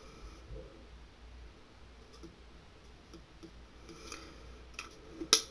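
Faint scattered clicks and taps of small craft items handled on a desk, with one sharp, louder click near the end.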